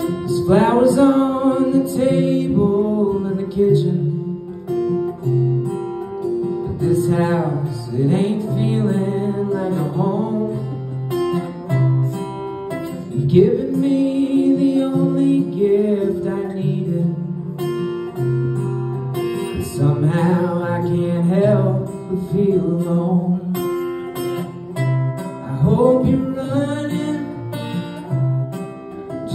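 Live solo acoustic guitar, strummed, with a man singing over it in phrases, the guitar carrying on alone in the gaps between lines.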